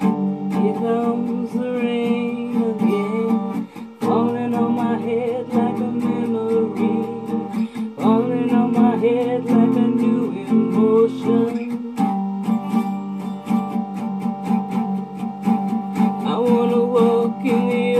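Acoustic guitar strummed in a steady rhythm, changing chord about every four seconds, with a woman singing over it.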